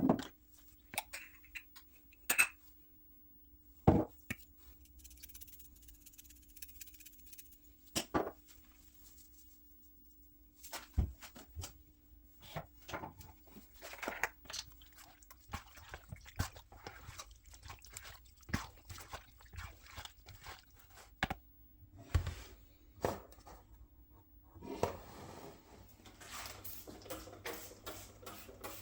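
Irregular clicks and knocks of small objects being handled, a few sharper ones in the first half, growing denser near the end, over a faint steady hum.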